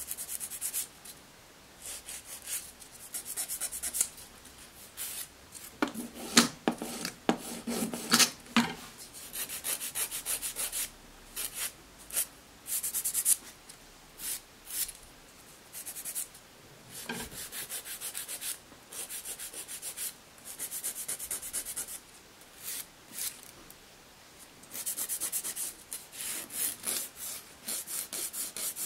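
Hand nail file rasping over artificial full-cover nail tips in runs of short back-and-forth strokes, stopping and starting, a few strokes louder than the rest.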